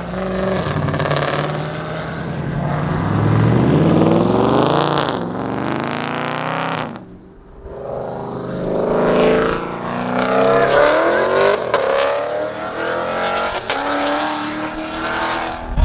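Car engines revving and accelerating hard, their pitch sweeping up and down again and again. A stretch of harsh high hiss comes about five to seven seconds in, then the sound drops briefly before the revving picks up again.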